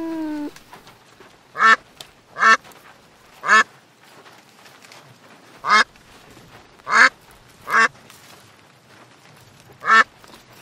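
A white domestic duck quacking: about seven short, single quacks spaced irregularly, a second or more apart. At the very start, the tail end of a kitten's meow.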